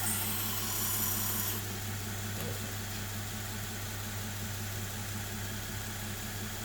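Belt grinder running with a steady motor hum. A high grinding hiss, the blade on the abrasive belt, cuts off about a second and a half in, leaving the motor and belt running on.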